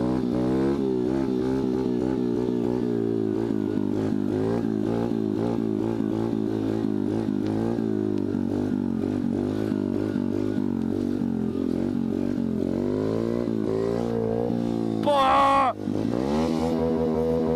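125 cc dirt bike engine pulling a long wheelie, its pitch wavering up and down as the throttle is worked to hold the balance point. About fifteen seconds in it revs sharply for under a second, then the front wheel is back down and the engine settles to a lower, steadier note.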